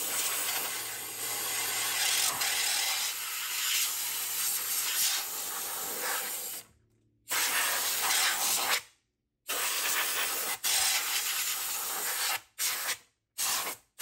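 Compressed air hissing from a nozzle as dust is blown out of an opened stereo receiver's chassis. It starts as one long blast of about seven seconds, then comes in shorter blasts with gaps between them, and ends in a few brief puffs.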